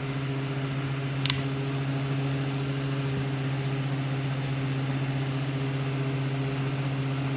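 Honeywell HT-900 TurboForce air circulator fan running steadily on speed setting 3, its highest: a steady motor and blade hum over the rush of air. A single short click about a second in.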